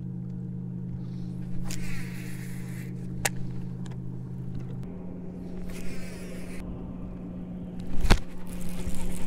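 Electric bow-mounted trolling motor running with a steady hum; the lower part of the hum drops out about halfway through as the motor's speed changes. A few light clicks from handling the rod and reel, and one sharp knock shortly before the end, the loudest sound.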